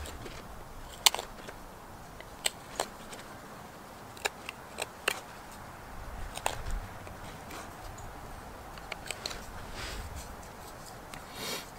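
Folding knife whittling a wooden spoon blank: several short, sharp snicks as the blade slices shavings off the wood, spaced irregularly, with a brief scraping swish near the end.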